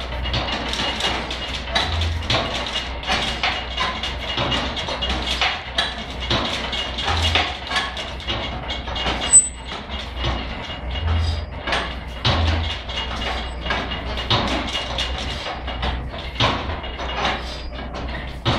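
Manual roller bender being worked by its lever handle, rolling a steel tube into a ring: irregular metallic clicks, knocks and creaks from the rollers and handle, with a few dull thumps, over a steady low rumble.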